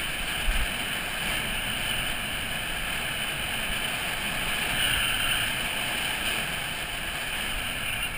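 Steady rush of wind over the microphone mixed with the hiss of urethane wheels rolling fast over wet asphalt on a downhill run, with a short bump about half a second in.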